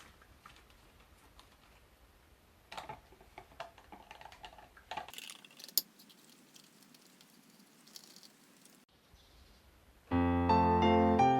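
Faint scattered clicks and light knocks, then keyboard background music with a piano-like sound starts abruptly about ten seconds in and is the loudest sound.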